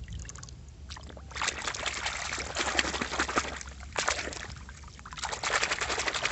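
Water splashing and sloshing as a hand swishes a small plastic toy car back and forth in a puddle to rinse off mud. It comes in three bursts: a long one starting about a second in, a short one a little later, and another near the end.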